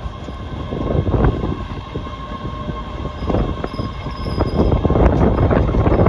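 Subway train running on the rails: a steady low rumble with irregular clacks and rattles and a faint steady whine, growing louder near the end.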